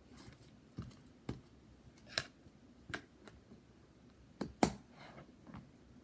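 Slime being squished and pulled by hand, giving a handful of short, scattered clicks and pops, the loudest about two-thirds of the way through.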